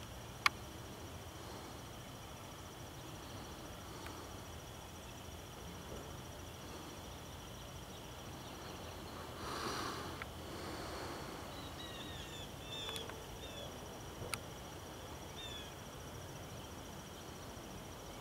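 Faint outdoor ambience: a steady, high insect trill, with a few short bird chirps in the second half, a brief surge of noise about halfway through, and a couple of sharp clicks.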